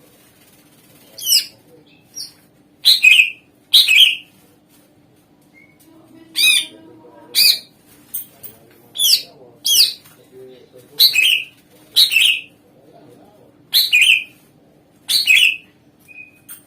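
Cucak ijo (green leafbird) singing in short, loud, sweeping notes, about a dozen, spaced roughly a second apart and often in pairs.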